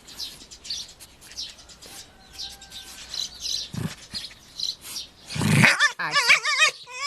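A young animal's wavering, warbling cry near the end, its pitch wobbling quickly up and down, after a few seconds of faint repeated high chirps.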